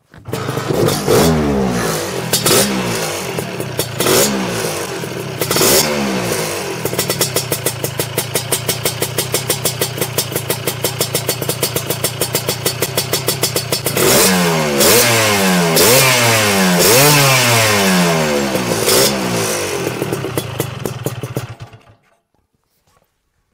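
Lambretta scooter's tuned TS1 230 two-stroke single on a SIP Nordspeed touring exhaust. It fires up, is blipped a few times and settles to an even idle, then is revved repeatedly before cutting off near the end. A grunty exhaust note.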